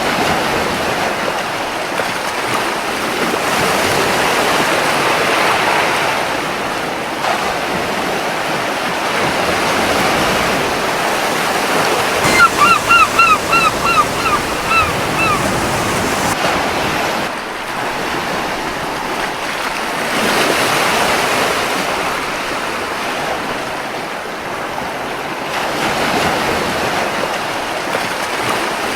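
Surf washing onto a beach, swelling and easing every few seconds. About twelve seconds in, a gull gives a run of about eight short calls over three seconds, the loudest sound.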